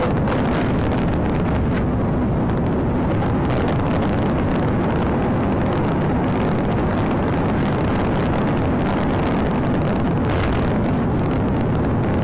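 Patrol car driving at about 100 mph: a steady, loud rush of road and wind noise.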